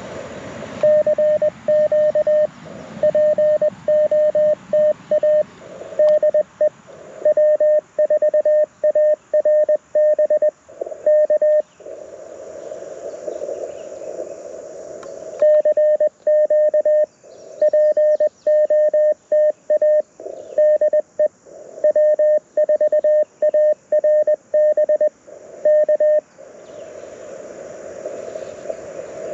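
Morse code at one steady pitch from an LNR Precision Mountain Topper MTR4B transceiver, played through a JBL Go 2 speaker. It comes in two runs of about ten seconds of keyed dits and dahs, with about four seconds of receiver hiss between them.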